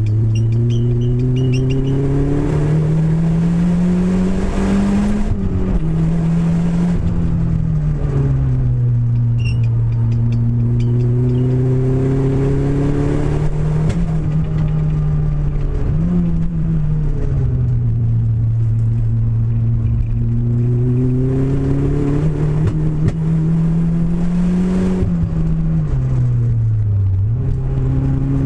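Renault Clio engine running with a misfire, its revs climbing slowly and dropping back several times.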